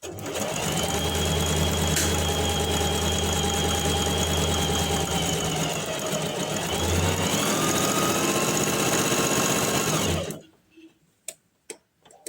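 Electric sewing machine running steadily for about ten seconds, its motor whine dipping briefly in pitch about two-thirds of the way through before picking up again, then stopping abruptly.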